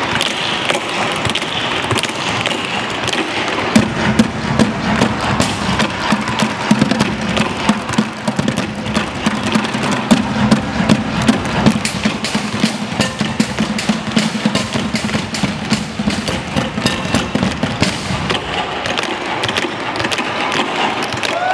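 Tap dancing: several dancers' tap shoes striking portable tap boards in a fast rhythm. The taps are set against music, with a steady low tone from about four seconds in until near the end.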